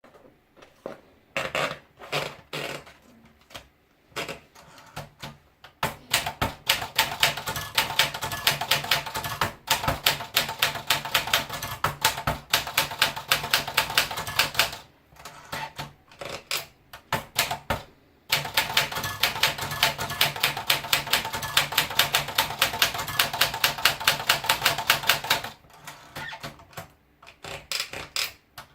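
Olympia Splendid 33 manual portable typewriter being typed on. A few slow, separate keystrokes, then fast runs of several strikes a second, broken by a pause of a few seconds near the middle and slowing again near the end.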